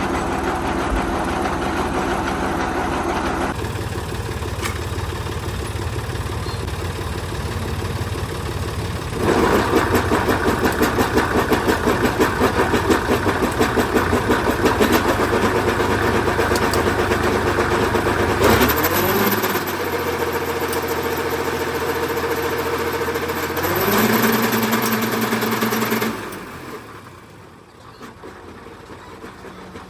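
Grass cutting machine running after its gear shaft repair. It goes louder with a fast pulsing for about ten seconds, rises in pitch twice to a steady speed, then winds down and stops about 26 seconds in.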